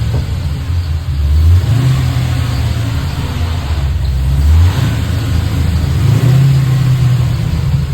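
Chevrolet Chevelle engine running under way, its low note rising and dropping back several times as the car is driven and revved.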